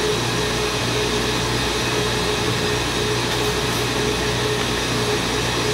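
A steady mechanical hum with an even rush of air and a constant tone under it, from a machine running in the room.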